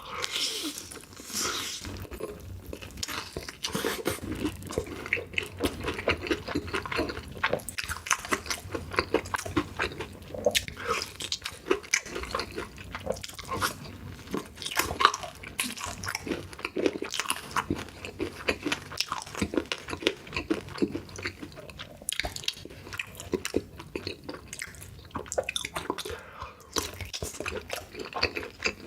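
Close-miked ASMR eating: a person biting and chewing food, a dense run of short crunches and mouth clicks.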